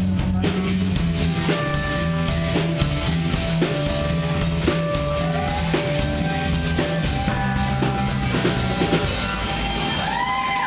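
Live rock band playing, with a drum kit, a bass line and guitar. The drums and bass drop out about nine seconds in, leaving held guitar notes that bend in pitch near the end.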